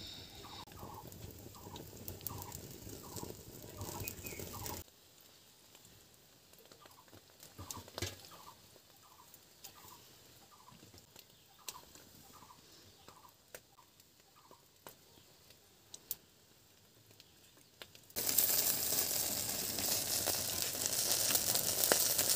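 A bird calling over and over in short, evenly spaced calls, about two to three a second, clear at first and then fainter after a sudden drop in level about five seconds in. Near the end a loud, steady rushing noise takes over.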